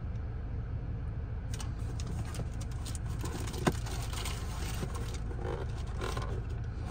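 Steady low rumble of a car idling, heard from inside the cabin. From about a second and a half in, a paper receipt and a small cardboard box rustle and click as they are handled, with one sharper click in the middle.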